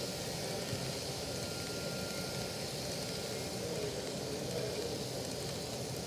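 Model train of double-stack well cars rolling steadily past, its wheels running over the track under a low engine drone from the Union Pacific SD70ACE models' LokSound DCC sound decoders.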